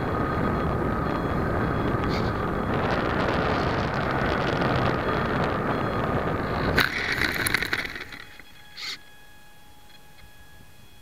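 Apprentice S 15e RC trainer plane's brushless electric motor and propeller running with a steady rush of air as it lands and rolls out on grass. About seven seconds in comes a sharp, crackling clatter lasting about a second as the plane noses over into long grass, then the motor stops and only a faint hiss remains, broken by one short rustle.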